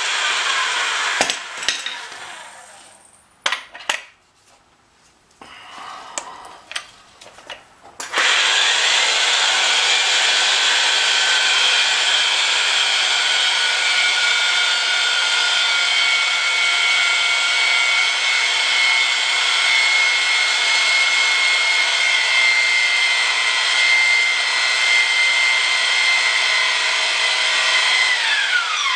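Oster power pipe-threading machine running, then spinning down about a second in; a few sharp metal knocks follow, then the motor starts abruptly about eight seconds in and runs steadily as the die cuts threads on 1/2-inch black steel gas pipe, winding down with a falling pitch at the very end.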